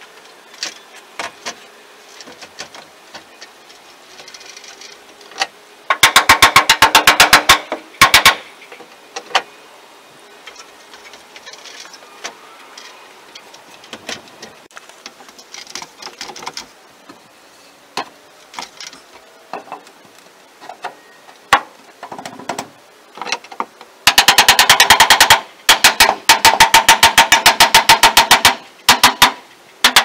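Pneumatic nail gun firing in rapid bursts of sharp clicks, about ten a second. One burst comes about six seconds in, and a longer broken run of bursts fills the last six seconds. Lighter knocks and taps of handling come in between.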